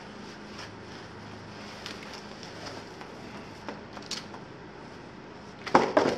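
Plastic packaging bag and cardboard box being handled: scattered light rustles and clicks, then a loud burst of plastic crinkling near the end. A steady low hum runs underneath.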